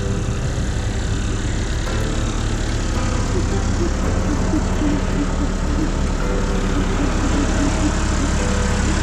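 Diesel engine of heavy earthmoving equipment running steadily.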